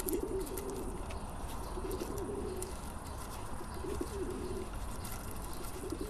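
A pigeon cooing, a low phrase repeated about every two seconds.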